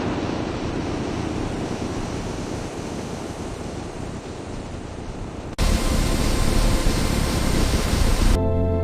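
Steady rushing noise that switches abruptly, about five and a half seconds in, to a louder rush with a deep rumble. Music with held notes comes in near the end.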